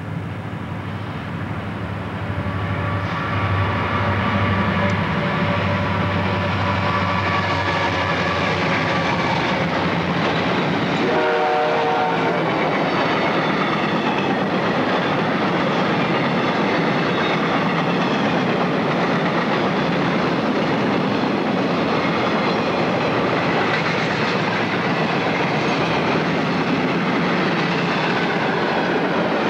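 Diesel freight locomotives approach and pass, their engine drone growing louder over the first few seconds. About eleven seconds in comes a short horn note. After that the freight cars roll by with a steady rumble and clatter of wheels on rail.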